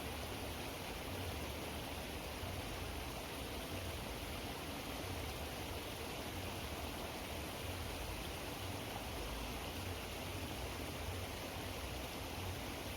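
Steady rushing outdoor background noise with a faint low rumble, unchanging throughout.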